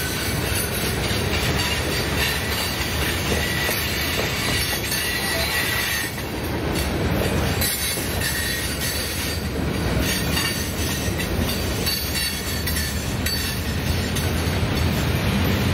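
Freight cars of a long manifest train rolling past: a steady rumble and rattle of steel wheels on the rail, with a faint high wheel squeal a few seconds in.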